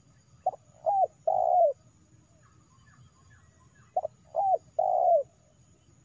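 Spotted dove cooing: two three-note phrases, each a short note, a second note and a longer final note that falls in pitch, about three and a half seconds apart.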